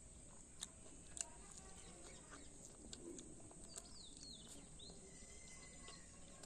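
Faint bird chirps, a few short falling calls about four seconds in, over a quiet background broken by several sharp clicks.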